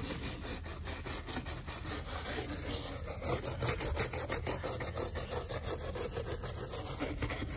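Soft-bristled brush scrubbing a tortoise's shell in quick repeated strokes, bristles rasping over bare bone where the burned shell came off.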